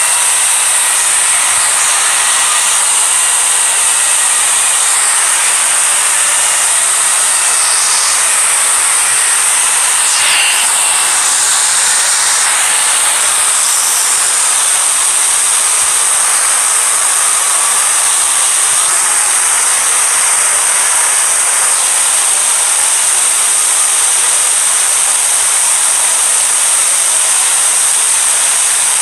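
Loud, steady hissing noise that sits mostly in the high range and does not change, like static.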